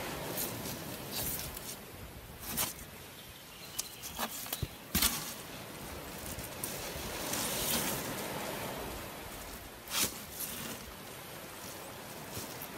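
Wet, freshly caught sea bass and mullet being handled and shifted by hand in a container: scattered slaps, knocks and rustles, a cluster of them about four to five seconds in and one more sharp knock about ten seconds in, over a steady background hiss.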